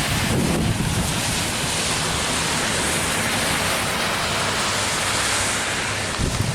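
Steady rain falling in an even hiss, from the outer bands of a hurricane.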